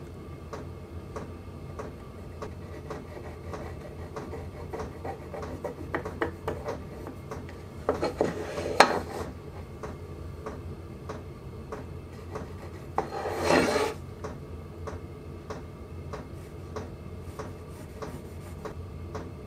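Pencil scratching and rubbing on a wooden board while marking out a cut-out, with small clicks and taps as a metal square and tape measure are handled on the bench. Two louder scraping strokes, each about a second long, come near the middle, over a low steady hum.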